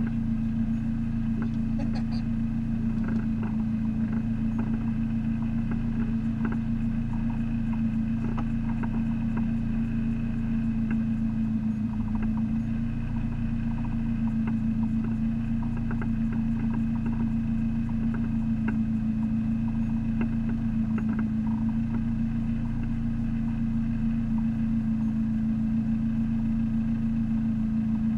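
Race-prepared Neon's four-cylinder engine idling steadily, heard from inside the cabin, with a few faint ticks scattered through.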